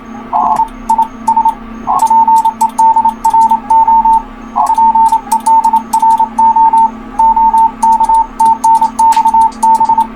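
Morse code (CW) tone from a ham radio receiver on the 40-meter band: one station's keyed dits and dahs at a steady pitch, with a few rougher, wider blips from another signal, over a steady low hum, hiss and light clicks.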